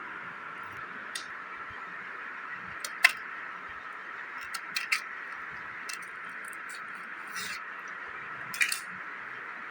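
Steady background hiss with a few light clicks and knocks of things being handled. The sharpest knock comes about three seconds in, and a short squeaky rattle comes near the end.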